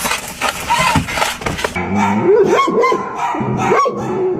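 A dog whining and yipping in short rising and falling cries, starting about two seconds in, after a stretch of clattering noise.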